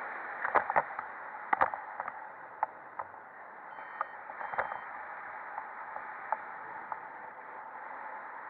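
Steady rush of wind over the camera microphone during a paragliding flight. A series of sharp clicks and taps comes mostly in the first couple of seconds, and two brief high beeps sound near the middle.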